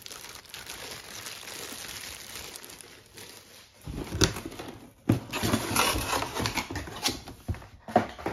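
Packaging being handled: a plastic-wrapped part crinkling and a cardboard box being moved. There are a couple of sharp knocks about four seconds in, then louder rustling and scraping from about five seconds in.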